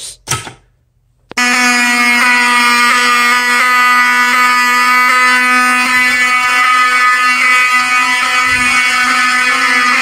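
Vintage fire alarm horns, Pyrotronics- and Fire-Lite-branded Wheelock 7002-series horn/strobes, come on suddenly a little over a second in, set off by a manual pull station. They sound a loud, steady buzzing horn tone with a faint regular pulse.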